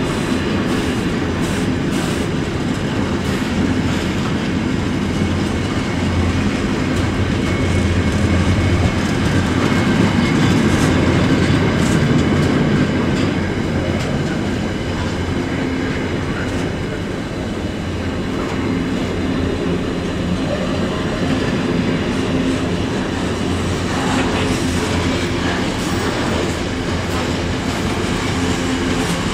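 Container freight train's wagons rolling past in a steady rumble of wheels on rail, with scattered clicks, a little louder about ten seconds in.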